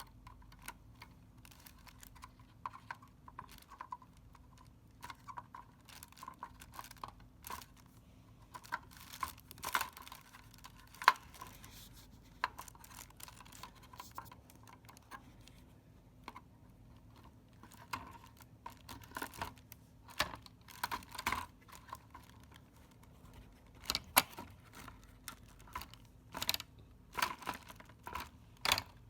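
Irregular small plastic clicks and taps of hands handling a RAM stick and pressing it into a motherboard memory slot, one sharper click about eleven seconds in and a denser run of clicks near the end.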